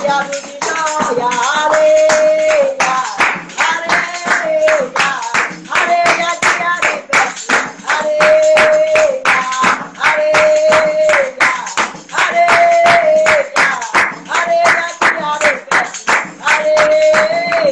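A woman singing a samba de roda song, phrases ending in a long held note about every two seconds, over steady hand-clapping.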